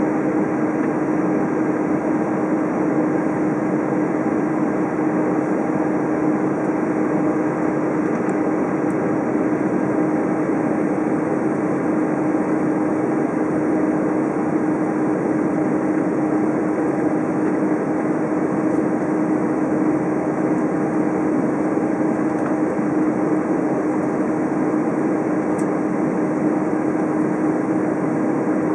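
Steady cabin noise inside a taxiing Airbus A320: an even rush of engine and air noise with a constant low hum.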